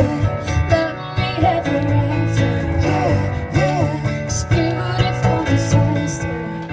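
A woman singing a pop ballad through a microphone over electronic keyboard chords, with long bending sung notes and no clear words.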